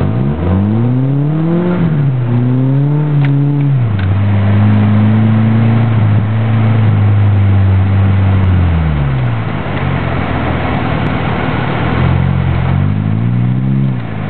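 Car engine heard from inside the cabin, revving up and down while driving on snowy roads: the pitch climbs and dips for the first few seconds, holds steady and high for about four seconds, drops away to a low hum, then climbs again near the end, over steady road and tyre noise.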